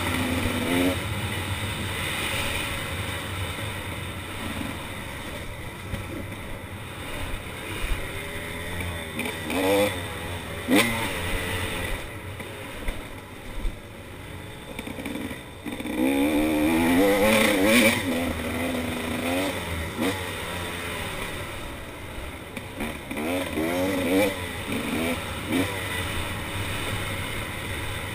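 KTM 300 XC two-stroke dirt bike engine running under way on a dirt trail, its revs rising and falling several times as the rider opens and closes the throttle, loudest about two-thirds of the way through, with a few sharp knocks near the middle.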